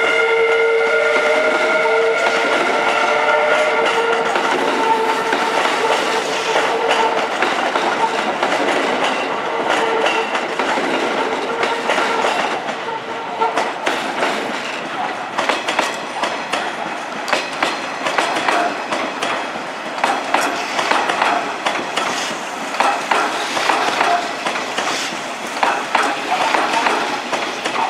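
Kintetsu electric train moving through the station. A steady whine with a tone rising over the first few seconds fades out about halfway, and then the wheels clatter in quick irregular clicks over the points and rail joints.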